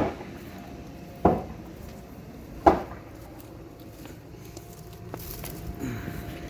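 Three sharp knocks, about one and a half seconds apart, followed by a few seconds of low steady background.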